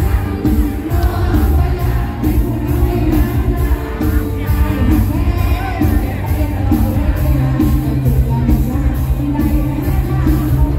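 A mor lam band playing live through a loud PA, with a singer over a steady beat and heavy bass.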